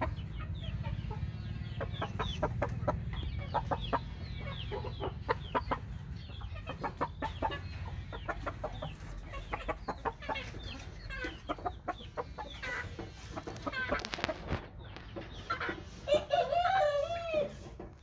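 Chickens clucking with many short, quick calls, and a rooster crowing once near the end.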